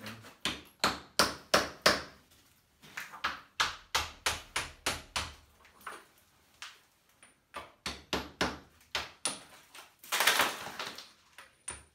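Hand-hammer blows chipping cement render off an old stone wall, coming in quick runs of about three to four strikes a second with short pauses between runs. A brief rasping noise comes near the end.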